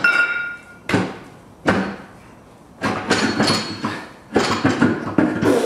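Land Rover differential clunking against its axle casing as it is rocked and jerked by hand to break its glued-in gasket seal: about half a dozen heavy metal knocks at irregular intervals.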